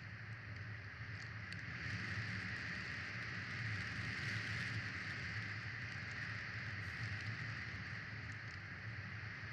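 Steady outdoor background hiss with a low hum underneath and a few faint ticks.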